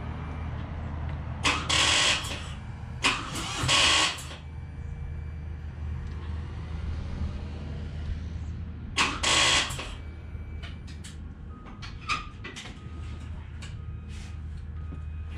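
2018 Harley-Davidson Breakout failing to start on a dead battery: the starter gives short bursts of clatter, several in the first four seconds and another about nine seconds in, without the engine catching. Scattered light clicks follow near the end.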